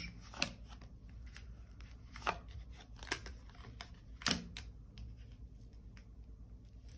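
Tarot cards being handled: a scattering of short, crisp snaps and taps, four of them clearer than the rest over the first four and a half seconds.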